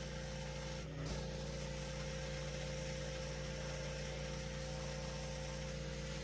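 Petrol pressure washer running steadily: a constant engine hum under the hiss of the high-pressure spray, with a brief dip about a second in.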